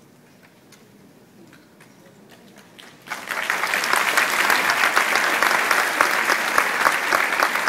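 A few faint scattered claps, then about three seconds in an audience breaks into loud, sustained applause.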